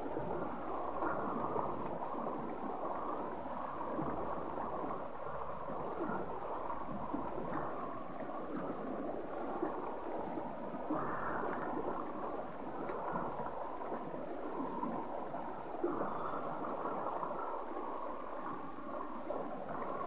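Shallow rocky stream flowing over stones, a steady rush of water with small irregular gurgles. A thin, steady high tone runs above it throughout.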